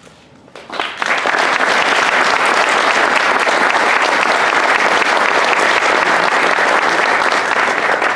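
Audience applauding, rising quickly about a second in and then holding steady and loud.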